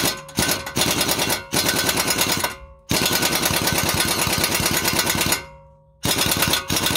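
Pneumatic impact wrench hammering in four bursts, the longest about two and a half seconds, on a 21 mm brake caliper carrier bolt to loosen it.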